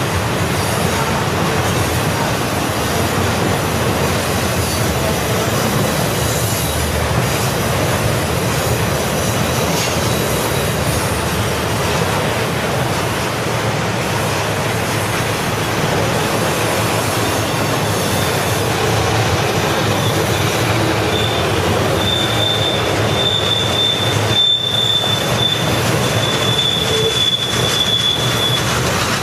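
Model freight train running on its track: a steady rolling rumble and rattle of wheels and cars. A thin, high squeal joins for the last several seconds.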